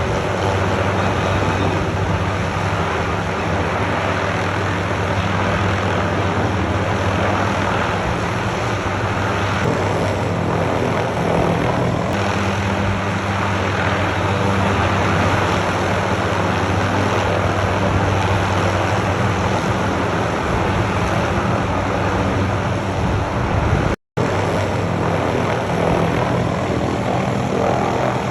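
Helicopter running steadily close by, a constant low rotor and engine hum over a broad hiss. The sound cuts out for an instant about 24 seconds in.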